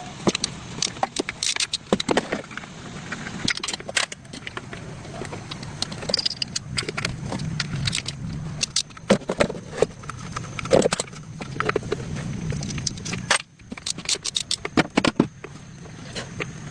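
Irregular clinks and knocks of hand tools on metal car parts, with a steady low hum beneath.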